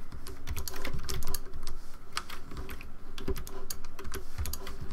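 Computer keyboard keys tapped in quick, irregular keystrokes while working shortcut commands.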